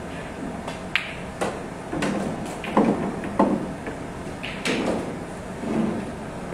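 Pool balls in play on a billiard table: a sharp click of the cue tip on the cue ball about a second in and a ball-on-ball click just after, then several heavier knocks of balls hitting the cushions and dropping into the pockets, and one more click near the end.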